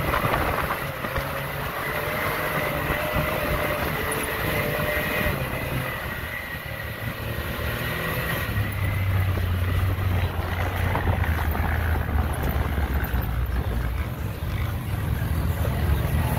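Off-road vehicle engines running over a steady rush of noise, with a faint high steady tone in the first half. A deeper engine hum comes in and grows stronger about eight seconds in.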